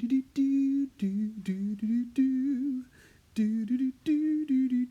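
A person humming a tune, a run of short held notes with a brief pause about three seconds in.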